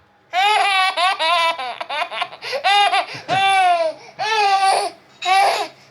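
Baby boy laughing hard in high-pitched peals: a quick run of choppy laughs, then several longer separate laughs with short breaks between them.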